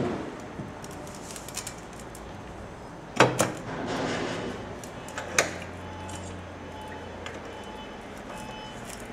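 Metal clanks and clicks as band saw blade stock is handled and clamped in a blade jointing machine, with two sharp metal knocks about three and five and a half seconds in. A brief low hum follows, then faint short beeps repeating.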